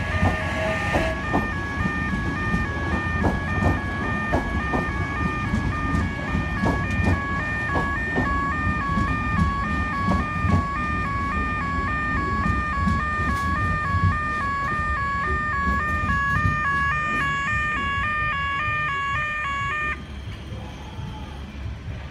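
Level crossing warning alarm sounding in a steady alternating two-note pattern and cutting off suddenly near the end. Underneath, an OSCar H set double-deck electric train rumbles past, its wheels clacking over the rails in the first half.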